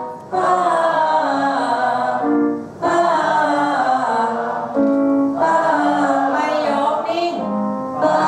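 A group of voices singing long held 'ah' vowels together as a breathing and vocal warm-up exercise. The notes are steady and are broken by short pauses for breath: one just after the start and one about two and a half seconds in.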